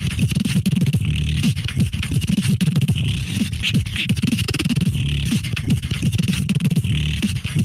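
Solo beatboxing heard over a Discord voice call: a fast, dense stream of short bass hits, clicks and hissy mouth sounds.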